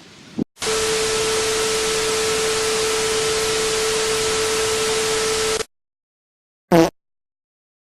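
Loud static hiss with a steady low tone running through it, lasting about five seconds and cutting off abruptly. After a second of dead silence comes one short blip with a pitch to it.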